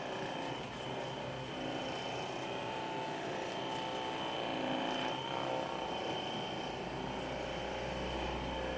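Handheld percussion massage gun (Hypervolt) running steadily against the muscles, its motor humming; a deeper hum joins near the end.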